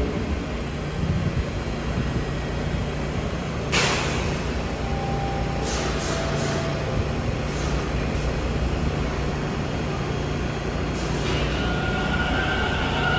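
Toronto TTC Bombardier T1 subway train at a station platform, with a steady low rumble. About four seconds in comes a sharp burst of noise, followed by a few lighter clicks, and a steady whine starts near the end.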